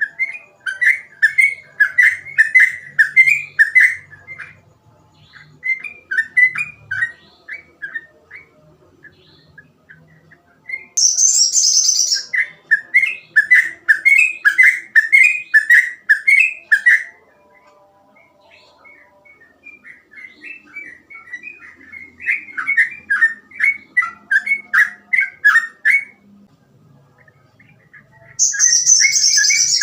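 Sooty-headed bulbul (trucukan) singing energetically in phrases of rapid, chattering notes with short pauses between them. A brief, loud, higher-pitched harsh burst comes about 11 seconds in and again near the end.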